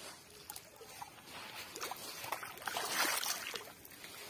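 A big catla thrashing and splashing in shallow water as it is hauled ashore, in irregular splashes that are loudest about three seconds in.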